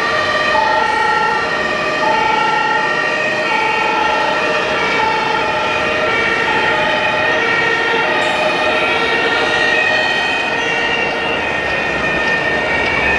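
Two-tone emergency vehicle siren in the German 'tatü-tata' style, alternating steadily between a high and a low note about every three-quarters of a second, from a radio-controlled model emergency truck's sound module, over the background noise of the hall.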